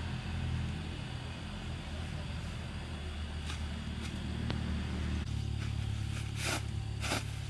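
A steady low engine-like hum, shifting in pitch about five seconds in, with two short rustles of handled fabric or bedding near the end.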